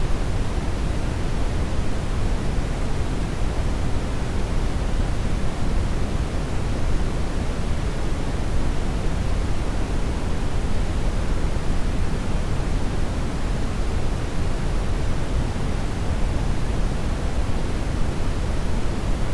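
Steady synthetic noise, an even hiss that never changes, with most of its energy in the low end and less toward the treble. The track is labelled purple noise, but its balance is closer to pink noise.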